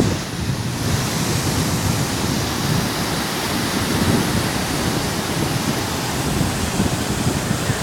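Sea surf: a steady rush of waves washing on the shore, with wind buffeting the microphone.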